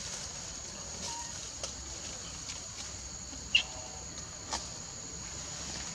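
A steady high insect drone in the background. About three and a half seconds in comes a short high squeak with a sharp click, and a second click follows about a second later.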